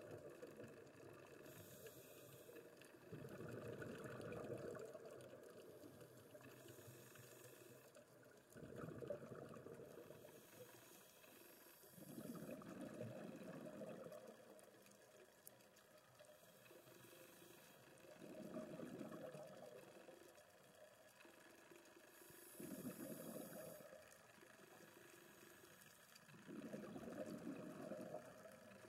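Scuba diver breathing through a regulator underwater: a brief inhalation hiss, then a louder gush of exhaled bubbles, repeating about every four to five seconds.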